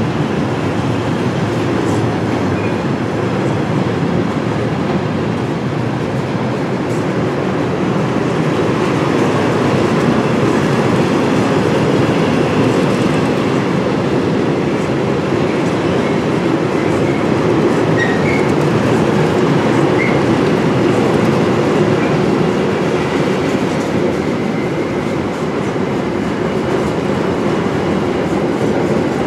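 Cartic articulated car-carrier wagons of a long freight train rolling past close by: a steady, loud rumble and rattle of wheels on the rails that goes on without a break.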